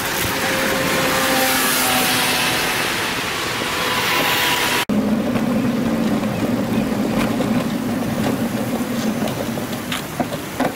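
Traffic and wind noise around a camera on a moving bicycle. After an abrupt cut about five seconds in, a steady low hum with scattered light clicks as the bicycle rolls on.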